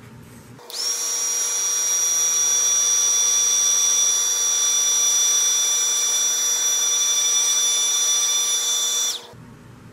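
Stampin' Up! embossing heat tool switched on about a second in: its fan motor whines up to speed and runs steadily with a rush of hot air, then cuts off sharply near the end. It is heating Heat & Stick powder on a stamped image until the powder melts and turns wet-looking.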